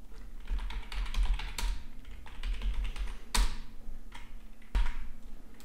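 Typing on a computer keyboard: an irregular run of key clicks, with two harder keystrokes in the second half.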